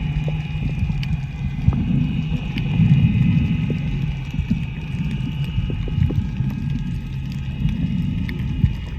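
Dive boat's engine running steadily, a low drone with scattered clicks and knocks over it.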